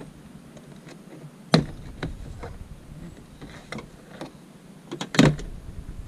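Plastic retaining clips of a Jeep Grand Cherokee's inside door trim panel popping loose as the panel is pried off the door: two loud sharp snaps, about a second and a half in and near the end, with lighter clicks and rattles between.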